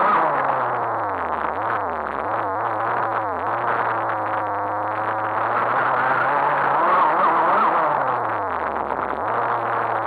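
RC car's motor and drivetrain whining as it drives over sand, the pitch rising and falling with the throttle: it drops low about two seconds in and again near the end, holding steady in between. The sound is muffled by the camera's fully sealed housing.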